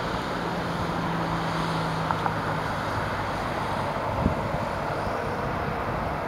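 Steady outdoor rumble of distant road traffic, with a low steady hum for the first couple of seconds and a few faint clicks.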